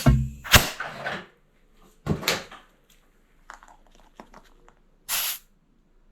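Short bursts of compressed air hissing from a tire inflator as the inner tube in a snowblower tire is topped up to about 16 psi, three bursts in all, with a few handling knocks in the first.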